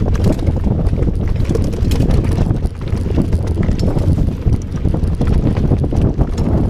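Mountain bike rolling fast down a rough dirt singletrack: heavy wind noise on a handlebar-mounted action camera's microphone, with tyre noise and frequent clicks and rattles from the bike jolting over bumps.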